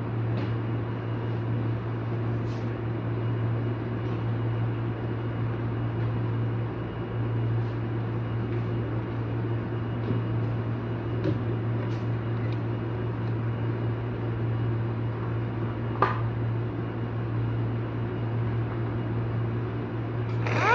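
Steady low electrical hum with a background whir, broken by a few light clicks, one sharper click about three-quarters of the way through.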